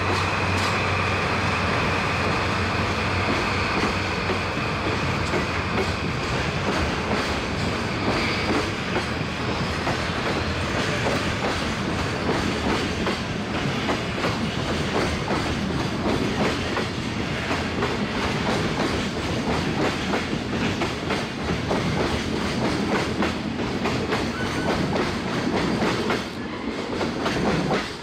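Freight train passing: the DD51 diesel-hydraulic locomotive's engine drone fades in the first few seconds. Then a long line of container flatcars rolls by with a steady clickety-clack of wheels over rail joints, dropping away near the end as the last car passes.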